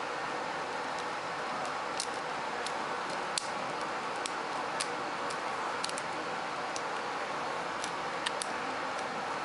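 Lock picks working inside a Master Lock padlock: small, sharp metallic clicks at irregular intervals, about fifteen of them, over a steady background hiss.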